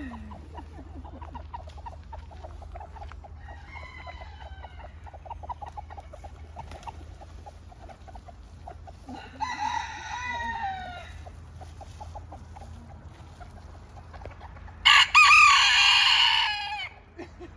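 Roosters crowing three times, the last one loud and near the end, over a flock of chickens clucking steadily.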